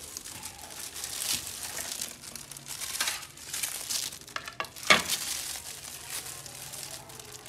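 Clear disposable plastic gloves crinkling as the hands handle and slice cantaloupe wedges on a plate, with scattered small clicks of knife and crockery. One sharper knock comes about five seconds in.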